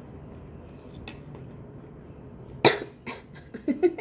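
A single sharp cough from a woman eating spicy, hot noodle soup, about two and a half seconds in, followed by a few smaller throat noises, over a faint steady room hum.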